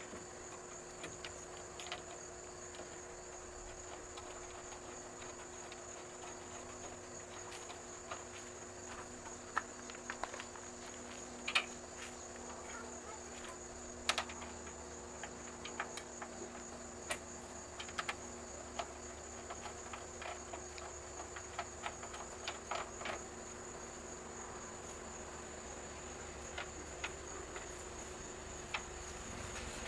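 Steady high-pitched chirring of crickets, with scattered light metallic clicks and taps from fender bolts being threaded in and snugged up by hand and wrench.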